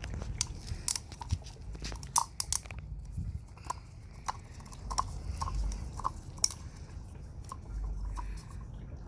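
Rubber O-ring being stretched and worked by hand onto an oil filter cartridge: irregular small clicks, creaks and short squeaks.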